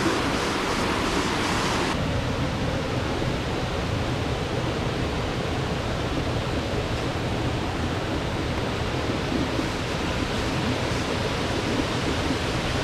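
Steady rushing water, a continuous even rush. About two seconds in it shifts abruptly from a brighter hiss to a deeper, fuller rush.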